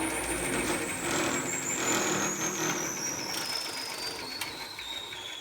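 10-inch table saw with a 12-inch sanding disc on its arbor, coasting down after being switched off. Its whine falls steadily in pitch as it slows, over a low mechanical hum.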